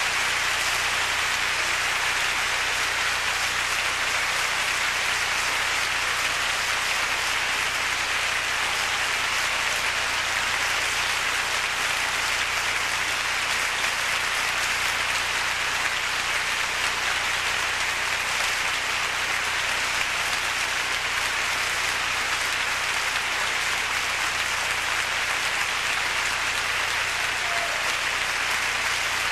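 Theatre audience applauding steadily, a dense, even clapping that keeps up without a break.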